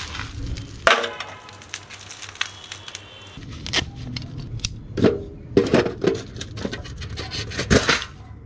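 A metal tin of freshly made wood charcoal and tools being handled: a sharp metallic clank about a second in, then an irregular run of clicks, knocks and scrapes as the charcoal lumps shift and clink. The loudest knocks come about five seconds in and near the end.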